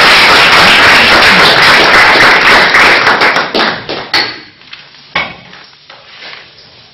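Audience applauding loudly, dying away about three and a half seconds in. A couple of sharp knocks follow.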